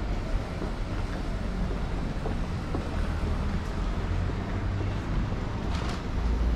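City street ambience: a steady low rumble of traffic with wind on the microphone.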